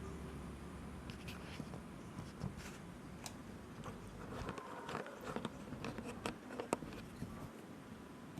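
Handling noise: scattered light clicks, taps and scrapes of small hard parts being handled, busiest in the second half.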